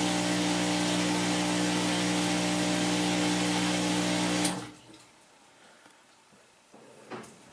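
Maytag Neptune front-load washer spinning at high speed with a steady motor hum and the rush of water being pumped out, during the spin step of its quick service diagnostic cycle after a motor and motor control board replacement. The sound cuts off suddenly about four and a half seconds in, leaving only faint small noises and a light click near the end.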